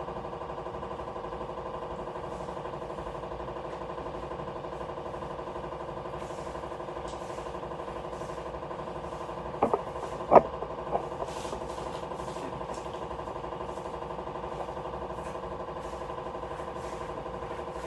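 A steady mechanical hum like a running motor, with a few sharp knocks or clatters about ten seconds in.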